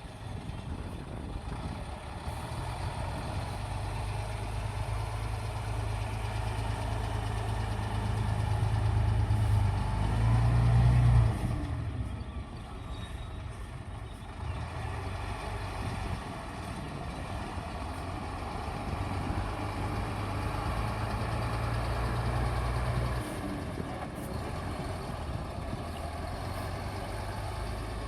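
Bulldozer's diesel engine running with a low, steady drone. It pulls harder and grows louder up to a peak about ten seconds in, then eases off. It loads up again for several seconds before dropping back a few seconds before the end.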